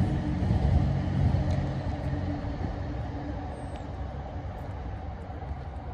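A 2.5-litre four-cylinder turbodiesel, the 1997 Mitsubishi Delica's, running at a steady idle with a low rumble. It grows gradually fainter.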